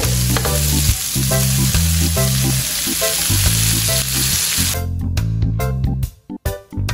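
Diced vegetables and chopped bell pepper frying in oil in a wok, stirred with a metal spatula, over background music. The sizzle cuts off suddenly about five seconds in, leaving only the music.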